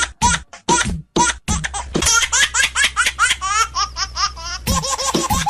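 Laughter laid over the footage: short, evenly spaced laughs a little over two a second, then quicker high giggles with rising squeals about two seconds in, and a different laugh near the end.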